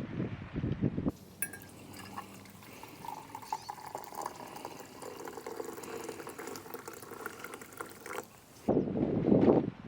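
Gusts of wind buffeting the microphone in the first second and again near the end. Between them comes a quieter stretch of trickling, pouring liquid.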